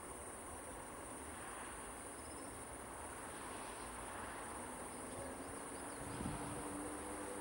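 Crickets chirping steadily, with a faint electric hum from approaching Siemens Smartron electric locomotives coming in about halfway through as a few steady low tones.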